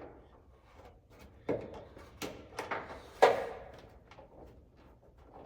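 A few scattered clicks and knocks of hands and hardware working a nut onto a bolt behind a fender rock guard, the loudest knock about three seconds in.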